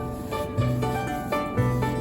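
Background music: a light tune of plucked-string notes over a bass note that returns about once a second.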